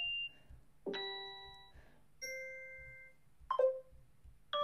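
Short UI success and completion sound effects from Facebook's Sound Kit, played one after another. Four chime-like notifications about a second apart, each a few bell-like tones that ring and fade.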